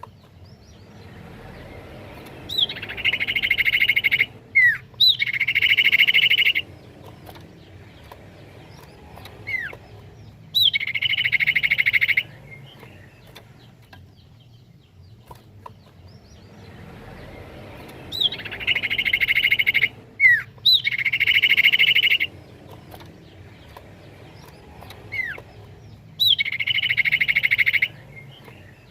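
Common iora (cipoh) calling: each phrase is a short slurred whistle note followed by a fast, rattling trill of about two seconds. The phrases come in a group of three, and the group repeats identically about halfway through.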